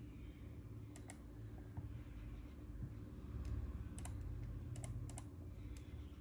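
Scattered clicks of computer keyboard keys, some in quick pairs, over a low steady hum.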